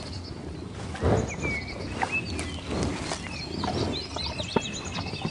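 Zebras feeding on dry hay, with a few short noisy bursts (the loudest about a second in) and some sharp clicks, while small birds chirp in the background.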